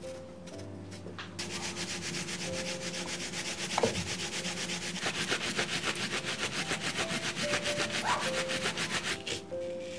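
Pear and then onion rubbed fast against a flat hand grater, a rapid, even scraping of strokes that begins about a second and a half in and stops shortly before the end.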